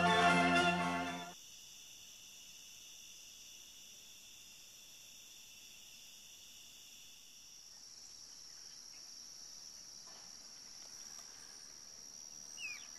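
Background music that stops about a second in, leaving a faint, steady, high-pitched trilling of night insects.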